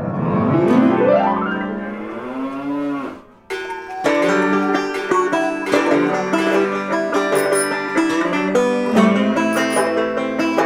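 A cow moos once, a long call of about three seconds that rises and then falls in pitch. Then, about three and a half seconds in, banjo-led plucked-string instrumental music starts and keeps going.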